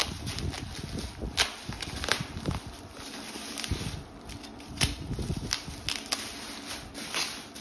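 Bubble wrap crinkling and rustling as a wrapped package is handled and lifted out of a cardboard box, with scattered sharp crackles and clicks.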